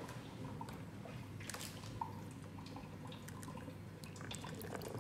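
Faint gas bubbling and dripping from a running hydrogen inhalation machine: scattered small bubble pops and drips, one more distinct about two seconds in, over a low steady hum.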